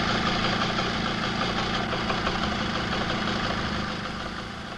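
Small two-stroke moped engine running steadily at low speed, easing off a little near the end.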